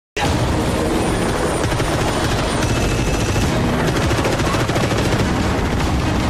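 A helicopter's rotor blades chopping and turbine engine running, loud and steady, cutting in suddenly just after the start.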